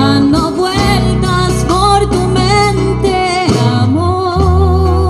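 A woman singing a slow, wavering melody with vibrato into a microphone, backed by a live band with bass, guitar and percussion.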